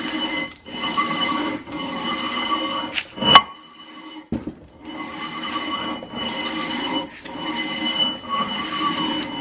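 Sandpaper on a heavy steel bar being dragged back and forth across the aluminium deck of a Toyota 2JZ cylinder head: a rasping scrape with a steady whine in it, about one stroke a second, as the head is hand-resurfaced with 80 grit. A sharp knock comes a little over three seconds in, then a short pause before the strokes resume.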